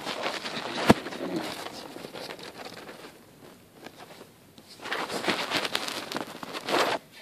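Jacket sleeve fabric rustling and crinkling as it is handled, in two spells with a quieter gap between, and one sharp knock about a second in.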